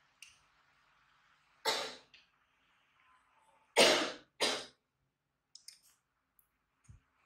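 Three coughs: one about a second and a half in, then two close together about two seconds later. A few faint clicks and a soft thump follow.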